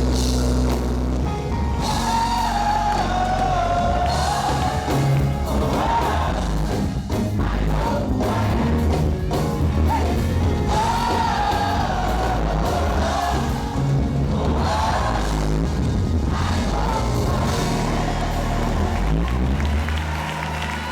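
Live gospel band playing, with heavy bass and drums, while a voice sings long, bending melodic lines over it.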